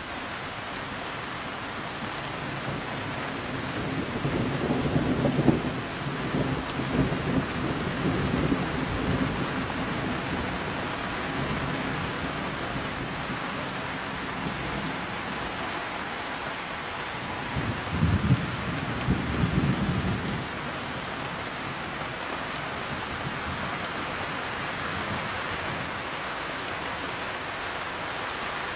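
Heavy rain falling steadily, with rolling thunder rumbling twice: a longer peal from about four to ten seconds in and a shorter, sharper one a little past the middle.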